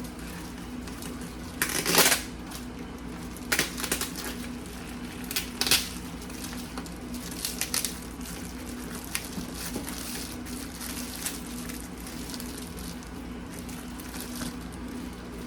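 Packaging being pulled and torn open by hand: irregular bursts of crackling and crinkling, loudest about two seconds in, then smaller rustles, over a steady low hum.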